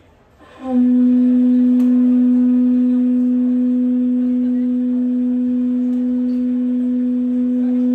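Hawaiian conch shell trumpet (pū) blown in one long, steady note that comes in about half a second in and is held unbroken. It is sounded as the ceremonial call that opens a Hawaiian music and hula performance.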